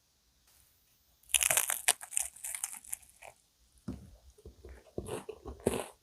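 Biting into a crisp cookie-crust cream puff close to the microphone: a loud burst of crunching about a second in, then scattered crackles and softer, wetter chewing of the cream-filled pastry.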